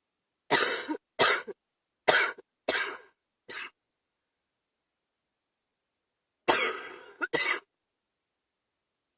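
A person coughing with a chest cold: a fit of five coughs in quick succession, then after a few seconds' pause two more coughs.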